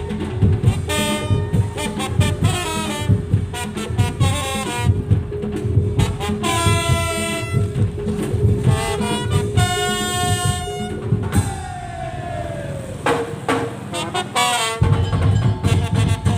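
Madurese tong-tong (daul) percussion ensemble playing: dense, steady drumming under a loud, high-pitched melodic lead. About eleven seconds in the drums drop out while the lead slides down in pitch, and the drumming comes back in near the end.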